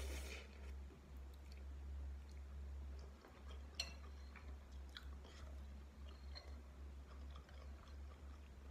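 Close-miked slurp of instant ramen noodles at the start, then quiet chewing with small wet mouth clicks. A sharp clink just under four seconds in: a metal utensil against the glass bowl. A steady low hum lies under it all.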